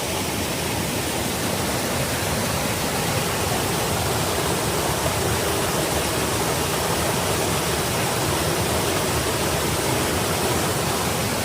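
Mountain creek rushing and cascading over rocks, a steady rush of water with no breaks.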